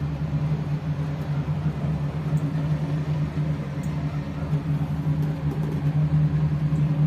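Steady low mechanical drone: one constant hum with a fainter tone above it over a low rumble, unchanging throughout, as from a running machine or vehicle carrying the listener.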